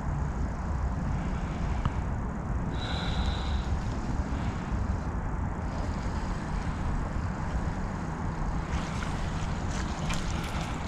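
Steady low outdoor rumble, like wind on the microphone or distant traffic, with a brief high whistle about three seconds in and a few light clicks near the end.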